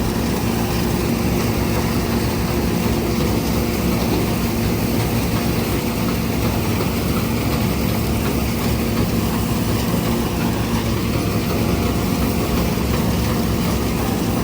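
Large John Deere combine harvester running steadily while harvesting rapeseed: an even engine hum with threshing-machinery noise that does not change in level or pitch.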